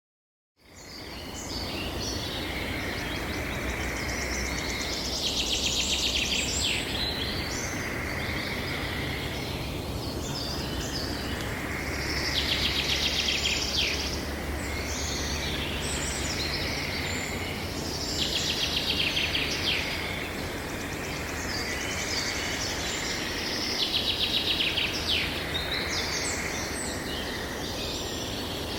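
A songbird repeats a short song phrase about every six seconds, each ending in a fast trill, over a steady low rush of wind.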